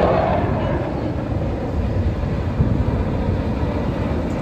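Steady rumble of a formation of jet aircraft flying past at a distance, easing off slightly after the first second.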